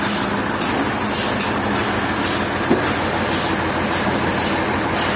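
Sawmill machinery running steadily, a dense mechanical din with a low hum under it and a high hiss that swells about twice a second.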